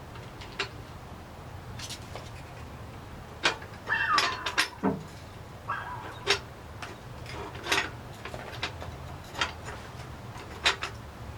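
Metal parts clinking and knocking as an old socket and wire are handled and fitted against the truss plate, about eight separate knocks, with a short falling squeak about four seconds in, over a steady low hum.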